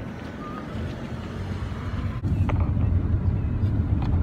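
Low, steady rumble of car road noise from inside a moving car's cabin, stepping up louder about two seconds in.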